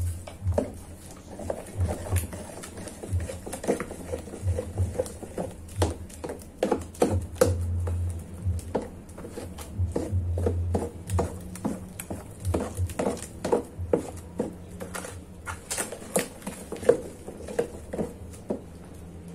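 A plastic spoon stirring and scraping thick, fresh corn masa in a plastic basin, in irregular strokes a few times a second, with occasional low rumbles.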